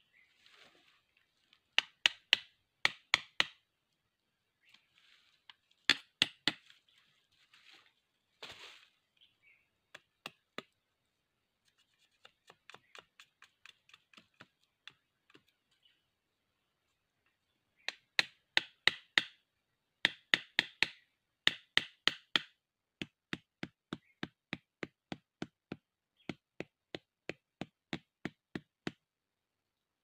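A knife chopping at bamboo, sharp knocks in quick bursts of four or five strokes. Near the end it settles into a steady run of about two strokes a second.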